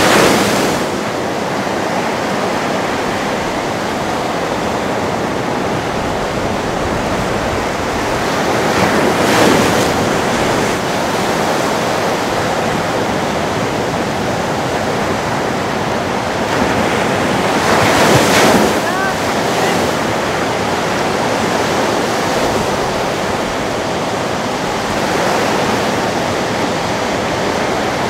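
Ocean surf: a steady wash of breaking waves and whitewater, swelling louder as waves break about nine seconds in and again around eighteen seconds in.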